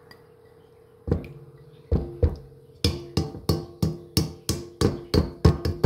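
Background music: a plucked, percussive tune with a steady beat of about three hits a second, coming in about a second in.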